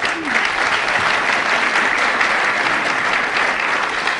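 Audience applauding: steady, dense clapping from a large crowd at the close of a speech.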